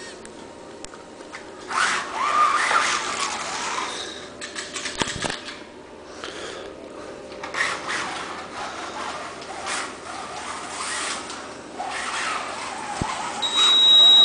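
Slot car running along a rally slot track: its small electric motor whines, rising and falling with the throttle, while the guide and tyres scrape over the rough painted track surface. A steady high beep, the loudest sound, comes near the end.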